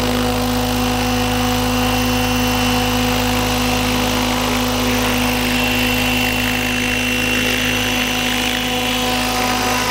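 Align T-REX radio-controlled helicopter hovering and drifting close in: a steady whine from its rotor and drive, with a higher tone that shifts a little about halfway through.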